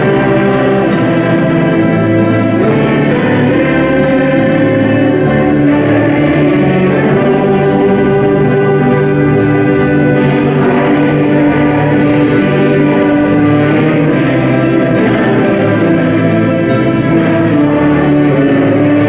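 Mixed choir of older voices singing a Danish gospel song in long held phrases, accompanied by a small band of accordion, banjo, saxophone and fiddle.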